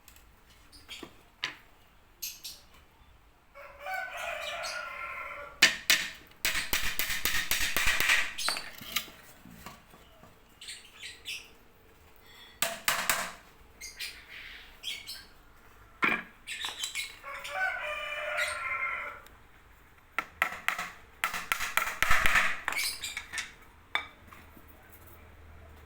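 A rooster crows twice, about four seconds in and again about seventeen seconds in. Between the crows come runs of rapid rattling clicks and a few single knocks.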